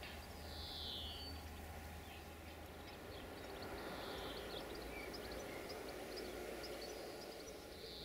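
Outdoor ambience of birds calling: quick high chirps, with three longer, buzzy, downward-sliding calls at about one, four and eight seconds in, over a faint steady low hum.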